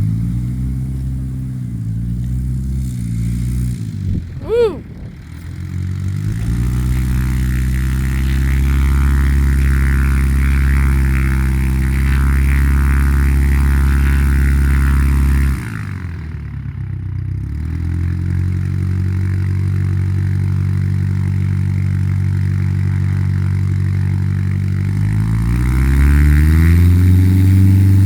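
Light aircraft's piston engine running and changing power: the pitch holds steady at high power, drops sharply as it is throttled back about 15 seconds in, and rises again as power comes back on near the end. A brief rising-and-falling whistle is heard about 4 to 5 seconds in.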